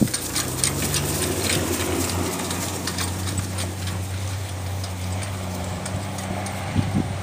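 Rocky Mountain Horse mare pulling a light cart across grass: hoofbeats with the clicking rattle of the cart and harness, over a steady low hum. The clicks are thickest in the first few seconds and thin out as the cart moves away.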